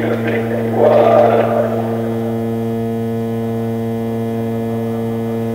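Loud, steady electrical hum drone with a stack of evenly spaced overtones from a live electronic noise set's modular synthesizer and electronics rig. A rougher, noisier swell rides over it in the first two seconds and then drops away, leaving the bare hum.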